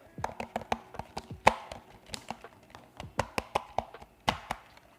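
Quick, irregular clacks and taps on the small plastic Vortexseries VX5 mechanical keyboard, roughly two dozen sharp strikes with a louder one about a second and a half in and another near the end. The sound is meant to show how solid its plastic body is.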